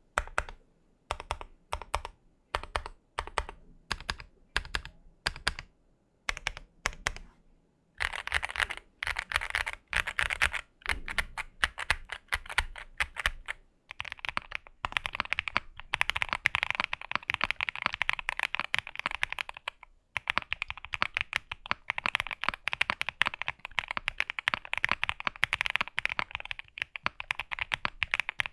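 Mechanical keyboard fitted with Designer Studio Starry linear switches being typed on. For the first eight seconds the keys are pressed one at a time, about twice a second, then fast continuous typing follows, with short breaks near the middle.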